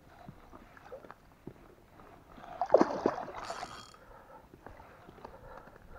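Water splashing and sloshing at the landing net as a hooked wild carp is worked alongside an inflatable boat, with a loud burst of splashing about two and a half to four seconds in and smaller splashes and knocks after it.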